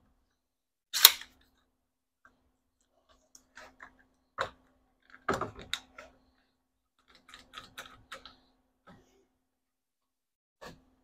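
Sporadic sharp clicks and knocks from handling tools and wooden framing pieces: a loud one about a second in, a quick run of lighter clicks around eight seconds, and a few single knocks between.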